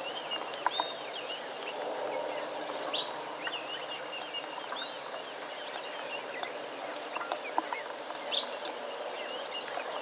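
Steady rain falling on a watering hole, with birds calling in short, repeated chirps that rise and fall, and a few sharp taps of water.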